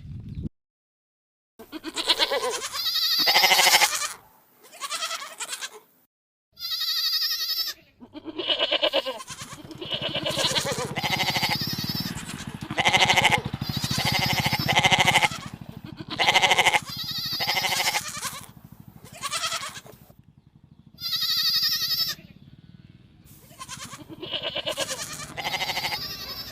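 Sheep bleating: a long series of separate quavering calls, one after another with short pauses, some following closely on each other.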